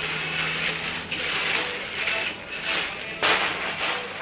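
A plastic mail satchel being opened by hand, crinkling and rustling in uneven swells, with a sudden louder crackle about three seconds in.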